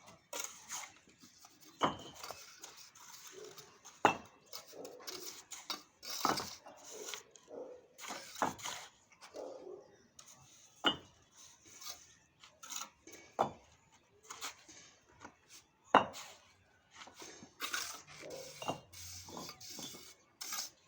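A mason's trowel clinking and scraping against bricks and mortar, with a sharp tap about every two seconds and softer scraping between.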